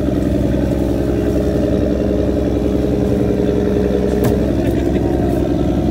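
Fishing boat's engine running steadily, a constant even hum, with a sharp click about four seconds in.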